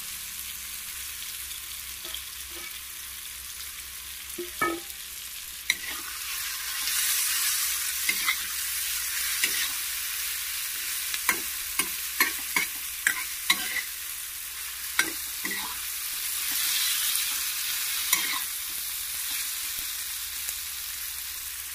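Tomato, onion and chopped coriander sizzling in hot oil in a frying pan on a gas stove, with a steady hiss. A metal spatula stirs the mixture and clicks and scrapes against the pan many times through the middle of the stretch.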